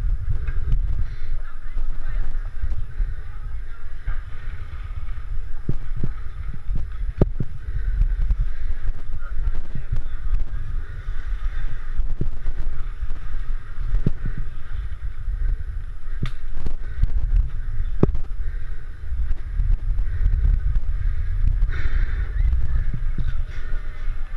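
Inline skate wheels rolling over promenade paving: a steady low rumble broken by sharp clicks at irregular intervals.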